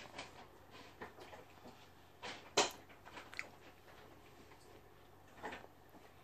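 Faint scattered taps and rustles of a spoon and a small plastic yogurt cup being handled, with one sharper click about two and a half seconds in.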